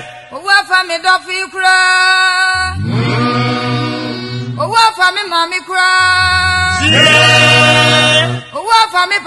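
Choral vocal music: phrases alternate between a lighter, ornamented vocal line and full sustained choir chords over a low bass.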